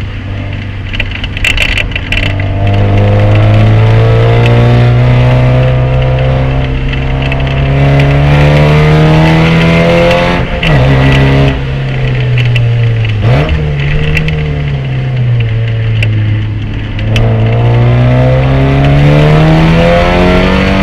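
Race car engine under load, its pitch climbing slowly before dropping sharply about ten seconds in at a gear change. The revs then fall away with a quick blip around thirteen seconds, hold, and climb again toward the end.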